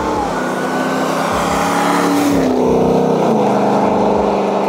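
Supercharged 6.2-litre Hellcat V8 of a Ram TRX running loudly, its engine note dropping in pitch twice, about two and three and a half seconds in.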